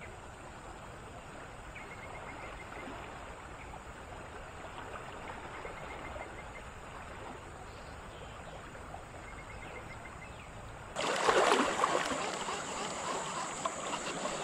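Steady flow of a shallow river. About eleven seconds in it becomes much louder and closer, water rushing around the wading angler's legs near the microphone.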